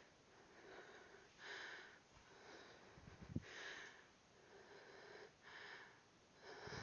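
Faint heavy breathing of a woman exercising, close to a headset microphone: breaths in and out about once a second, with a few soft low thumps about three seconds in.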